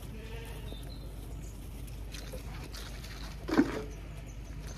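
A single short, loud dog bark about three and a half seconds in, over faint sounds of Zwartbles sheep feeding at a metal trough.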